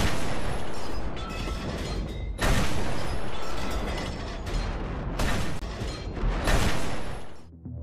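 Field-gun firing: repeated heavy artillery shots a second or few apart, each with a long rumbling tail, over background music. The shots die away near the end.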